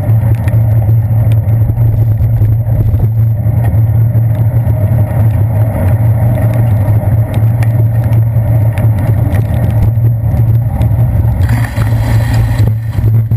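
Steady low rumble of a bicycle riding on a wet road, picked up through a handlebar-mounted GoPro action camera. A brighter hiss joins near the end.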